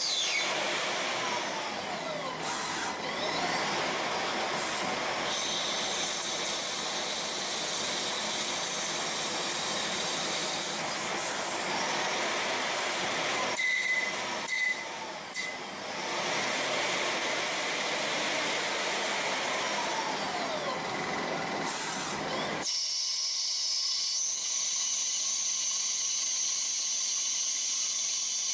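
CNC machine tools milling and turning cast pump impellers: steady cutting noise with high, steady whines. The sound changes abruptly several times, and about 23 seconds in the lower part drops away, leaving a thinner high whine.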